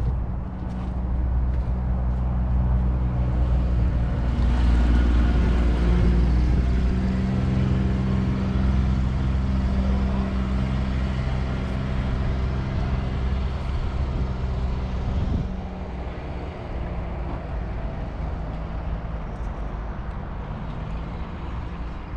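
Fendt 942 Vario tractor's 9.0-litre six-cylinder diesel engine running steadily. It grows louder about four seconds in and drops back suddenly about fifteen seconds in.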